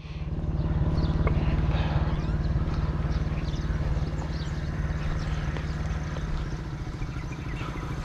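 Motorcycle engine running at a steady pitch, a little louder in the first few seconds and then easing slightly.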